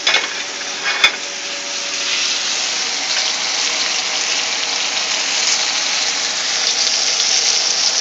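Flour-coated squirrel pieces sizzling steadily as they fry in a pan, with two short clacks in the first second as a plate is set down on the stovetop.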